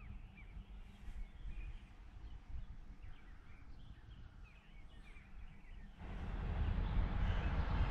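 Low wind rumble with a few faint bird chirps. About six seconds in, a louder steady rushing noise comes up and holds.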